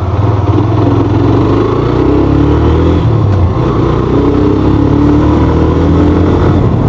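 Hero Xtreme 125R's single-cylinder engine running while the motorcycle is ridden, its pitch dipping and rising a little a couple of seconds in, then holding steady.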